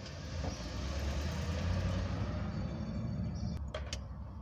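A motor vehicle's engine passing close by, a low rumble that swells and then fades over about three seconds, with two sharp clicks near the end.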